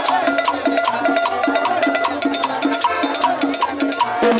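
Cumbia played by a band: percussion keeps a quick, steady beat, with a short note repeating about four times a second over crisp high clicks.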